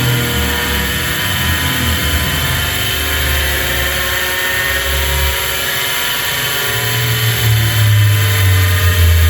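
Panasonic air-conditioner outdoor-unit fan motor overdriven on excess voltage and spinning at very high speed: a loud, steady high whine over a rush of noise, with a low rumble that swells and fades.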